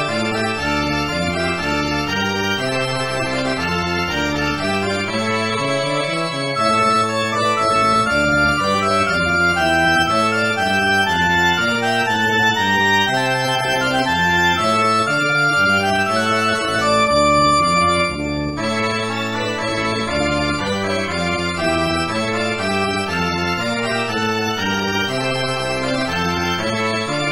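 Organ music: sustained chords under a moving melody line, growing louder about a third of the way in and settling back a little past the middle.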